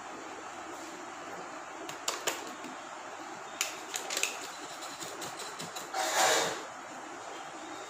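Handling of an aluminium foil takeaway tray and food packets: scattered light clicks and crinkles, with one louder, longer rustle about six seconds in, over a steady hiss.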